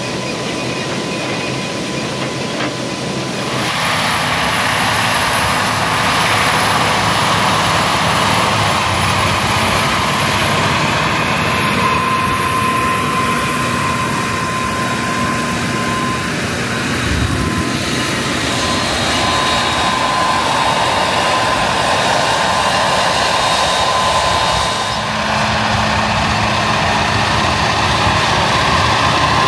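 Versatile DT620 tracked tractor working under load as it pulls a 32-row corn planter, a loud steady engine drone with a thin steady tone running over it. It gets louder about three and a half seconds in.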